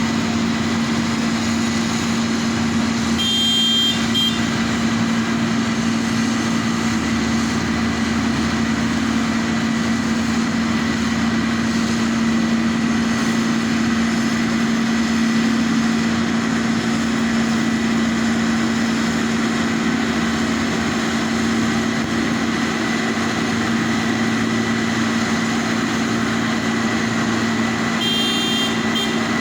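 An engine, of a road-construction machine or heavy vehicle, running steadily at a constant speed with an even hum. A short high-pitched tone sounds about three seconds in and again near the end.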